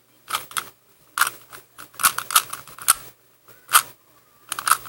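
Rubik's cube being turned quickly through a PLL algorithm: a rapid series of plastic clicks and rattles as the layers turn, in short clusters with brief pauses between them.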